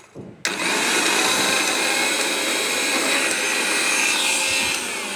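Eveready MG 500i mixer grinder's motor running steadily at speed with an empty steel jar fitted. The sound starts abruptly about half a second in, after a brief gap.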